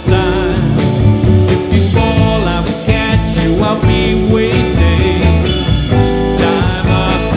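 Jazz band playing: drum kit with cymbals, upright bass and electric guitar.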